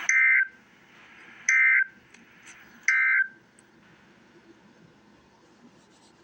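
Emergency Alert System end-of-message signal: three short bursts of warbling digital data tone, each about a third of a second long and about 1.4 seconds apart. They mark the close of the alert.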